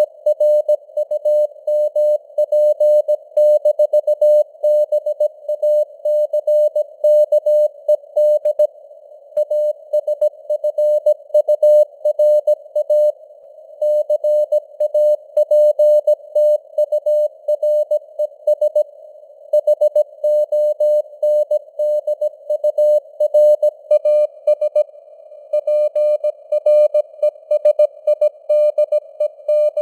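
Morse code (CW) sent at 17 words per minute as a single steady tone keyed on and off in dots and dashes. A narrow band of simulated radio receiver hiss lies around the tone.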